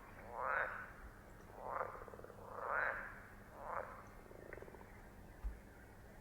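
Frogs croaking: four short, pulsed croaks about a second apart, then a fainter one a little past the middle.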